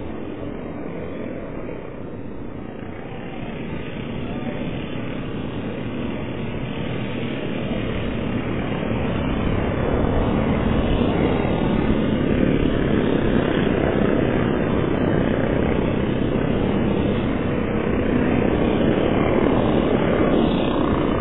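Engines of a pack of small off-road race trucks running at speed, a steady drone that grows louder about a third of the way in as they come closer and then stays loud.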